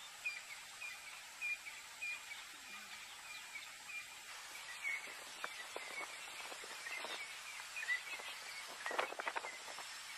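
Faint riverside bush ambience with birds chirping, short calls repeating about twice a second for the first few seconds and more scattered after. In the second half come a few soft clicks and rustles, the most of them about nine seconds in.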